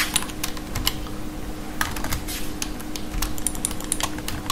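Typing on a computer keyboard: irregular key clicks, over a faint low steady hum.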